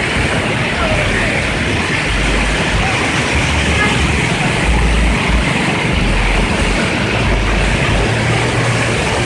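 Floodwater rushing across a road: a loud, steady noise of fast-flowing, churning water.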